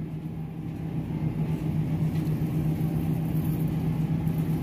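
Steady low hum over a low rumble: the background drone of a supermarket aisle, from refrigeration and ventilation equipment.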